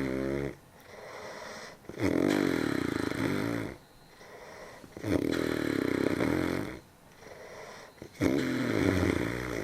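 A sleeping person snoring heavily: three long, rattling snores about three seconds apart, with quieter breaths in between.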